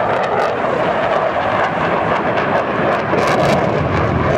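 Jet noise from a Eurofighter Typhoon's twin turbofan engines as it flies past, a steady, even noise with no breaks.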